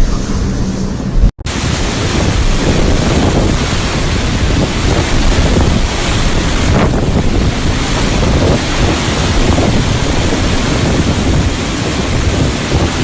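Strong blizzard wind blowing hard across the microphone, a loud, rushing, buffeting noise that keeps going without a break. About a second in, it cuts in abruptly, replacing a brief steady low hum from a previous clip.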